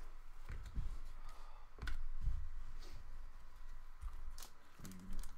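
Trading cards being handled and flipped through on a table: scattered soft clicks and light taps.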